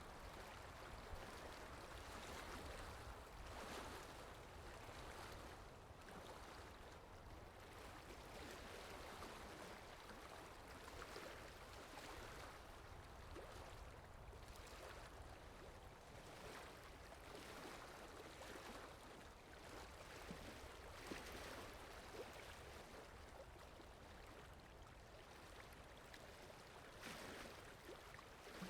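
Faint, steady rain: an even hiss that swells and eases every few seconds.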